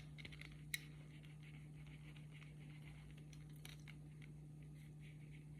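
Near silence: room tone with a steady low hum, a few faint ticks and one short click just under a second in.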